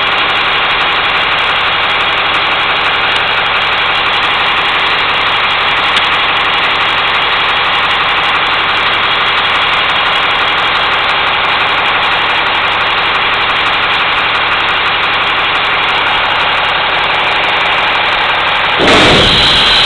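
Labrie Minimax garbage truck engine idling steadily. Near the end a louder sound cuts in abruptly.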